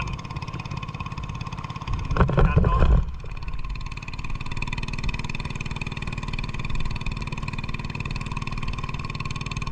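Small boat engine running steadily while under way. A louder burst of sound comes about two seconds in and lasts about a second.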